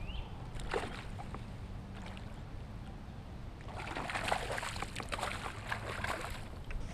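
A hooked largemouth bass thrashing and splashing at the water's surface beside a kayak as it is reeled in, the splashing coming in a burst about four seconds in. A steady low rumble of wind on the microphone runs underneath.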